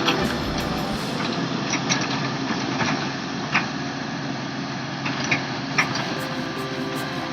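Heavy earthmoving machine's engine running steadily, with a few short sharp clanks.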